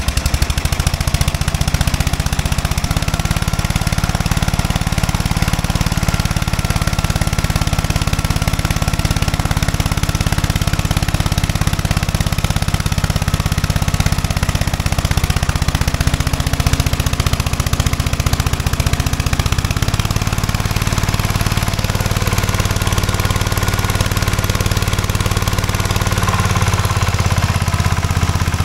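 Wheel Horse garden tractor engine running steadily while it drives a cutoff saw with an oversized circular blade spinning, its engine speed stepping up or down a few times. A faint high whine sits above the engine for long stretches.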